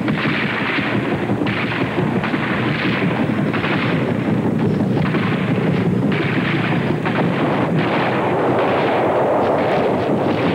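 Heavy, continuous gunfire and blasts in a dense, unbroken din that surges every second or so, like a war film's battle soundtrack.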